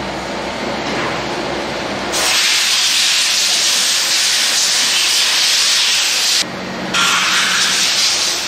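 A high-pressure jet hissing loudly, starting about two seconds in after a steadier lower rumble, with a short break about six and a half seconds in before it starts again.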